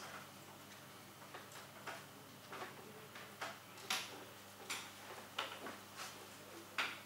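Faint, irregular clicks and taps, roughly one every half second to second, over a steady low hum.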